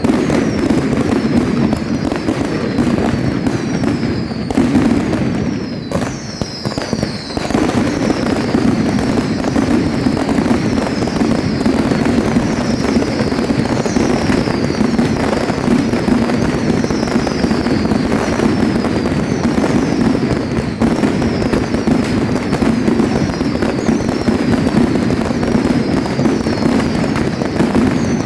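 Firework display at full intensity: a dense, continuous barrage of bangs and crackle, with short falling whistles repeating about once a second. The barrage thins briefly about six seconds in, then returns just as dense.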